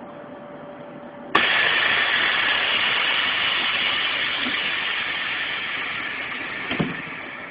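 A vehicle engine idles, then a click brings on a sudden loud hiss that fades slowly over about five seconds and ends with a knock.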